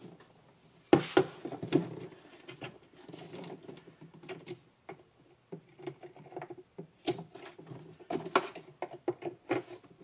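Locking pliers clicking, knocking and scraping against a stuck screw at a golf cart's starter solenoid as they are clamped on and worked to make it turn. Irregular knocks, the sharpest about a second in and again from about seven seconds on.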